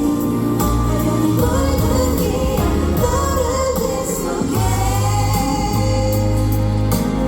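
Live pop music: a woman singing a melodic line over a band backing with sustained bass notes.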